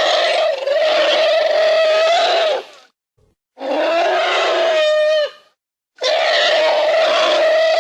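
Woolly mammoth sound effect: three long, loud bellowing calls, each holding one steady pitch, with short silences between them. The third call dips briefly near its end.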